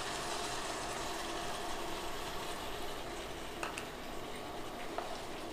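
Pan of chopped green beans and onions in hot oil sizzling steadily, with soaked moong dal and its soaking water just added. Two faint ticks sound about three and a half and five seconds in.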